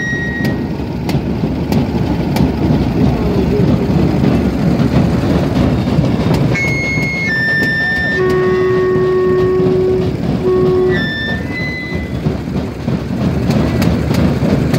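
Loud, dense noise of a street procession crowd. Short high whistle blasts sound at the start and again about six to seven seconds in. A steady horn-like tone holds for about two seconds past the middle, then sounds once more briefly.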